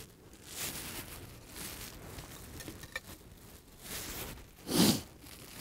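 Soft, uneven rustling and handling of camp gear on a ground cloth, with one short, louder rush of noise near the end.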